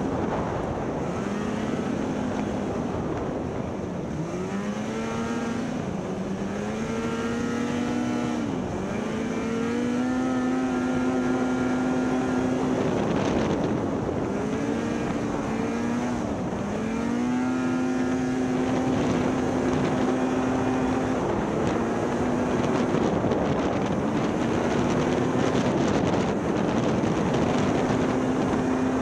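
Snowmobile engine pulling away from a stop and accelerating up a trail, its pitch rising in several climbs before settling into a steady run at speed.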